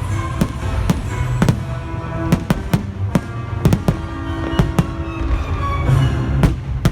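Fireworks bursting over loud music from a show's sound system: a string of sharp bangs at irregular intervals, a dozen or more, while the music plays on underneath.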